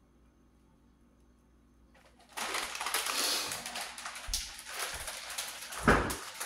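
A plastic shredded-cheese bag crinkling loudly as it is handled, starting a couple of seconds in, with a few dull thumps in the second half.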